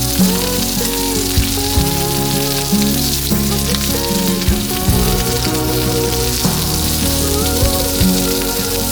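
Background music with held notes and a bass line, over a steady hiss of meat sizzling on a grill.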